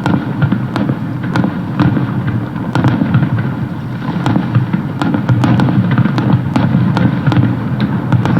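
Fireworks display: a dense, continuous barrage of shell bursts, with many sharp cracks and crackle over a steady low rumble, growing busier toward the end.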